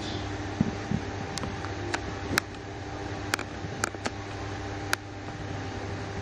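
A steady machine hum, like an electric fan, with a string of irregular sharp clicks that fit a baby macaque gnawing and biting on a small green plastic object.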